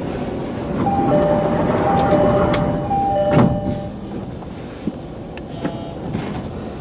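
Commuter train's door-closing chime: three two-note chimes, each a higher tone then a lower one, over steady train rumble. Just as the last chime ends, the doors shut with a thud, signalling the train is about to depart.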